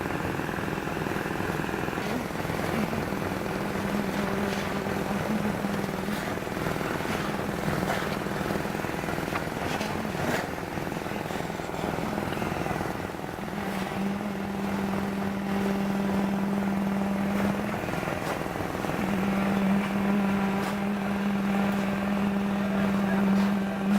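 A machine's engine running steadily with a droning hum that strengthens and eases several times, with scattered clanks and knocks over it.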